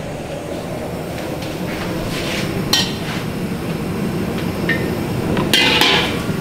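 Aluminium woks and a metal ladle clinking and clanking together as oil is poured from one wok into another: a sharp metallic knock about three seconds in, and a louder ringing clank near the end.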